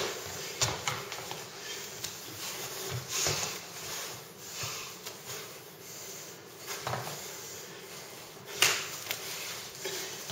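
Irregular slaps, scuffs and knocks of two people's arms, hands and bodies colliding during Wing Chun chi sao (sticking hands) training, with the loudest knock about eight and a half seconds in.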